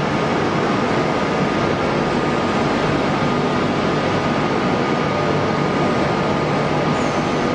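Okuma CNC machine running while it machines a crankshaft: a steady, loud noise with a constant high tone over it.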